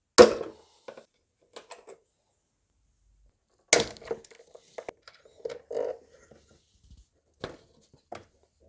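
Hard plastic knocks, clicks and rattles as an engine air filter housing is unbolted and worked loose. There is a sharp knock right at the start and another about three and a half seconds in, with scattered lighter clicks between and after.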